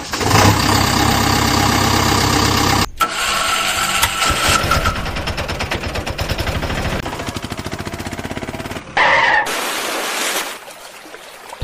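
Dubbed-in motor vehicle engine sound effects: an engine starting and running, then settling into a steady rhythmic idle, with a short louder burst of engine sound about nine seconds in.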